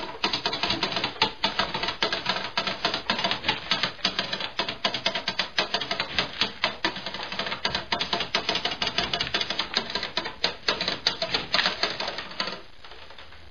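Rapid, irregular clattering and clicking of a cat's wooden exercise wheel and its pulley-driven food-dispenser mechanism in motion, stopping about twelve and a half seconds in.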